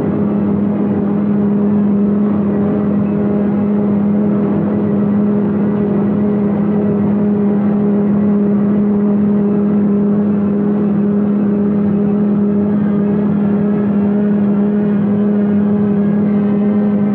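Overhead shop crane's electric hoist running with a steady low hum as it lifts a steam locomotive off its wheels.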